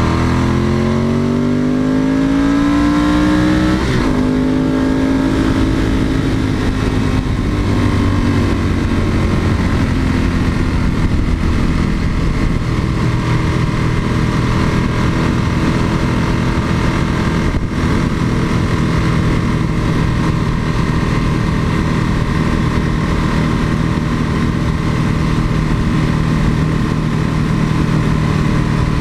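Ducati 996's L-twin engine heard from on board, pulling with its pitch rising for about four seconds, then a gear change and a steady note at cruising speed.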